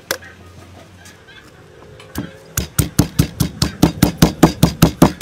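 Stone mortar and pestle pounding fresh red chilies: a fast, regular run of sharp strikes, about five a second, starting about halfway through and getting louder. A single knock comes right at the start.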